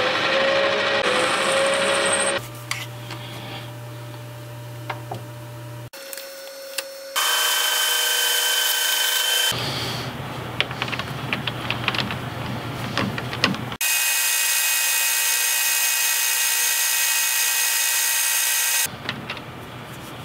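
Metal lathe cutting a small metal sleeve: loud stretches of steady machining noise with a fixed whine, at the start, around the middle and again near the end. Between them are quieter stretches of the lathe's hum and light clicks as the part is handled.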